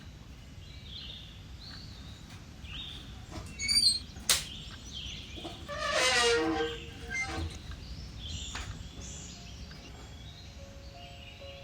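Birds chirping with short, high calls throughout, and one louder, longer call about six seconds in that drops in pitch at its end; a sharp click sounds about four seconds in. Soft piano music comes in near the end.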